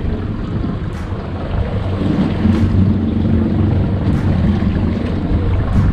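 Boat's twin outboard motors running at idle, a steady low hum, with wind on the microphone and water noise around the hull.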